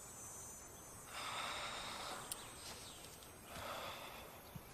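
Two soft sighing breaths, one about a second in and another near the end, over faint background hiss.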